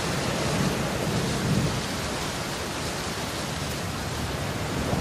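Steady, even rushing noise with a low rumble underneath, like rain with thunder.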